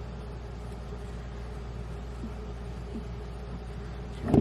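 Steady low hum of a running kitchen appliance with one constant tone in it, broken near the end by a single sharp knock.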